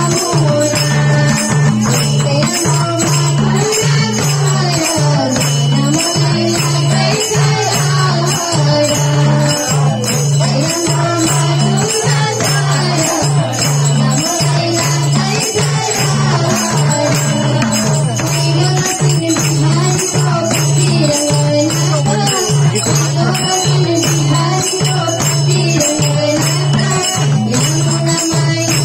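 Nepali Krishna bhajan performed live: a repeating sung melody over madal drums, jingling percussion and hand clapping, with a steady low hum underneath.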